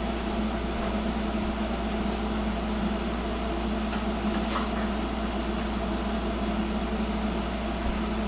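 Steady low mechanical hum with no speech. Two faint ticks sound about halfway through.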